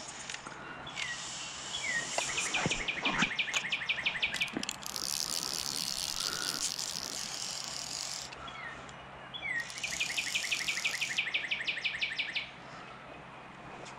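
A bird sings the same song twice, about eight seconds apart: a couple of short falling notes, then a fast, even trill. A higher hiss fills the gap between the two songs.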